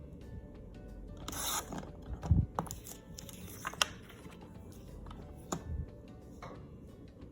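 Paper trimmer's blade swishing through glossy paper about a second in, followed by a low thump and several sharp clicks as the paper and trimmer are handled. Faint background music underneath.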